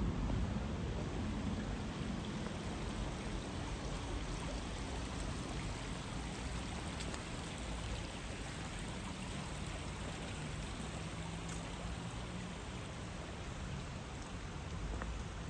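Steady rushing of running water, an even hiss with no breaks, under a low rumble that fades away over the first couple of seconds.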